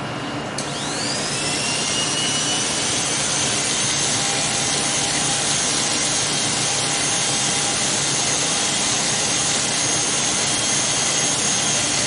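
Corded electric hair clippers switched on about half a second in, their whine rising as the motor comes up to speed, then running with a steady buzz as they cut hair.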